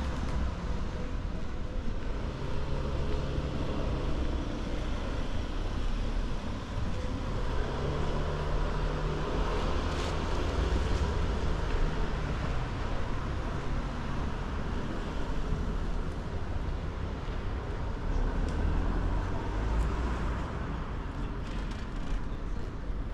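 Steady city traffic noise: a low, even rumble of cars on surrounding streets, with a few faint clicks.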